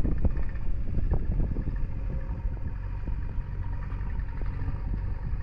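Uneven low rumble of wind on the microphone, over the steady drone of farm tractor and backhoe loader diesel engines running.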